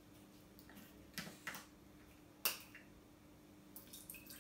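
Cap of a new plastic water bottle being twisted open, with a few short sharp clicks as the seal ring breaks; the loudest click comes about two and a half seconds in.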